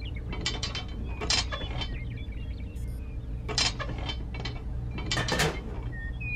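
Plastic toy train track sections clicking and clacking as they are set down and fitted together, in a few short clusters of sharp clicks over a steady low hum.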